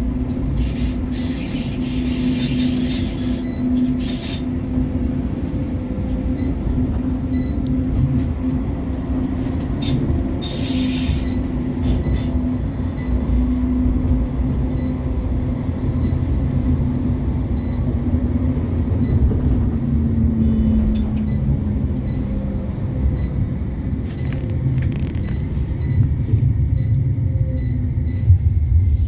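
CAF Urbos 3 tram running, heard on board: low wheel and track rumble under a steady traction-motor whine, with a few short hissing squeals early on. The motor whine falls in pitch about twenty seconds in as the tram slows on the approach to a stop.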